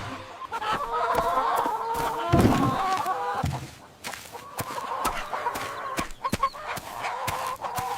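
Hens clucking in a run of short calls, with scattered light clicks and a brief lull about halfway through.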